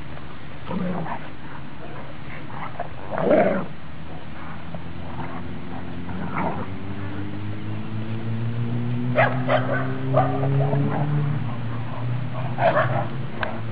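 Dogs playing, with a few short barks and yips a few seconds apart, the loudest one a few seconds in. A steady low hum runs underneath, and a slowly rising drone passes through the middle.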